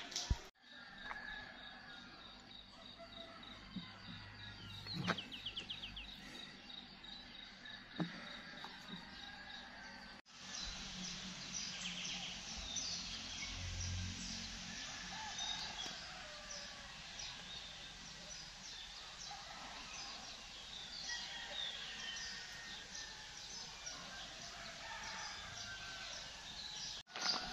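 Outdoor ambience of many small birds chirping, with a steady high insect drone in the first part. The background changes abruptly twice where separate takes are cut together.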